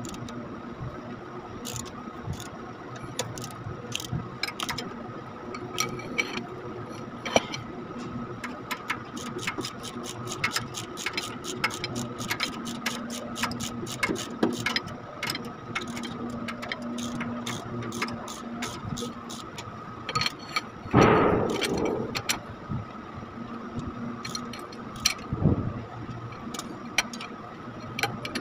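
Hand ratchet wrench clicking in irregular runs as a bolt is turned, over a steady background hum. A louder noisy burst lasting about a second comes about 21 seconds in.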